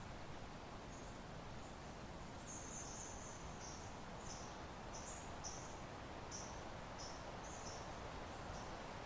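Soft, steady wind in open country, with a run of about ten short, high chirps scattered over it, most of them in the middle.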